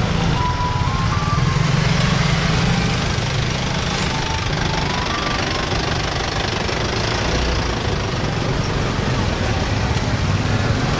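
Ice cream vendor's cart playing a jingle, a simple melody of single notes, heard in the first second or so and again around four to five seconds in, over the steady low rumble of motor traffic.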